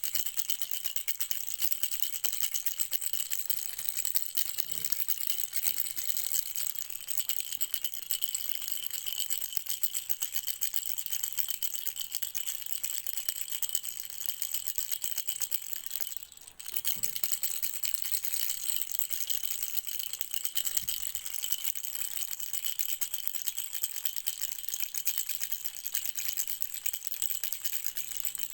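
Baby rattle shaken continuously, a bright, rapid rattling that stops briefly a little past halfway, then resumes.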